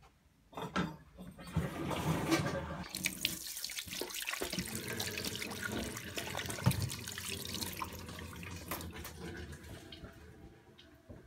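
Water running from the spigot of a 2.5-gallon plastic water jug and splashing into a stainless steel sink, used for hand washing. It starts about a second and a half in and fades off near the end.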